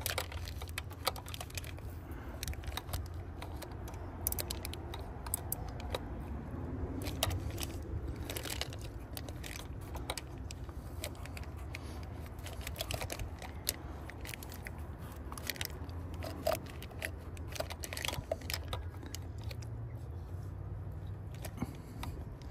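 Ratcheting box wrench clicking in short, irregular runs as a small engine bolt is worked a little at a time, with light metallic tool clatter. A low steady hum sits underneath.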